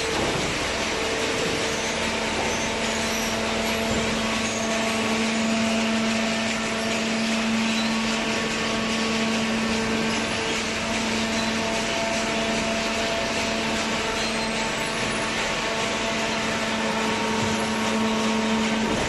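Horizontal carton waste baler running: a steady machine hum with a higher tone that comes and goes, over a constant wash of mechanical noise.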